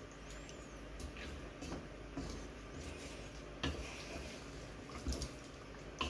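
A spoon or spatula stirring chicken in a large cooking pot of milky sauce, with scattered knocks and scrapes against the pot.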